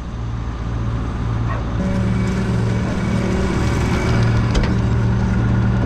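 Combine harvester running, a steady engine drone that builds over the first two seconds, with a deeper hum joining about two seconds in.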